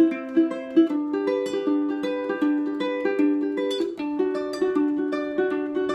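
Ukulele fingerpicked in a steady arpeggio pattern, single plucked notes ringing one after another, with the chord changing about a second in and again about four seconds in.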